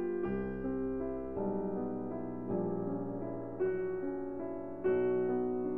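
Background piano music: slow chords, a new one struck about every second and left to fade.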